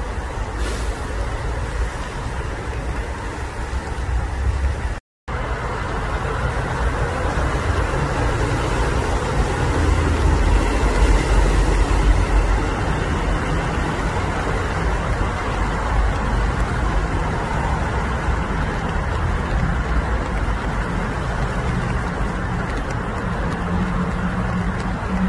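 Steady low rumble of nearby road traffic, which cuts out for a moment about five seconds in.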